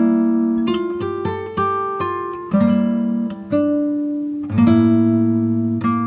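Background music: an acoustic guitar strumming chords about once a second, each chord ringing out and fading.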